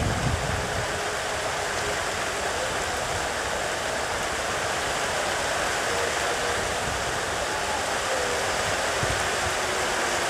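Heavy rain falling steadily, a dense even hiss with no break.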